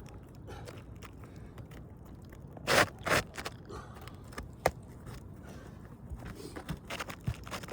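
Nails being driven to fasten roof shingles back down: a few sharp knocks, two loud ones close together about three seconds in and another near five seconds, with scraping of shingles and lighter clicks between.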